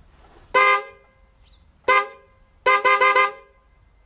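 Freshly installed pair of two-tone trumpet car horns sounding in short loud blasts: one about half a second in, another near two seconds, then a quick run of four beeps.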